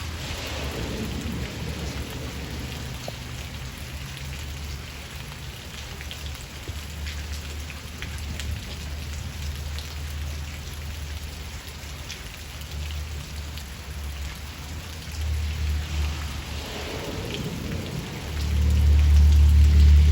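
A rain shower falling steadily, with drops pattering on surfaces. Under it runs a low rumble of thunder, which swells loud near the end.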